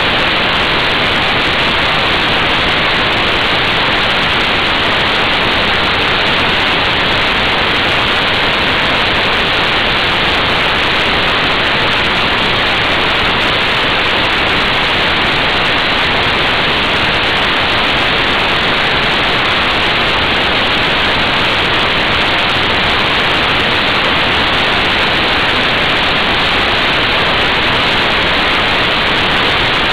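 Steady, loud wind rush over the microphone of a camera on a Honda Fireblade sport bike at motorway speed, an even roar with no engine note standing out.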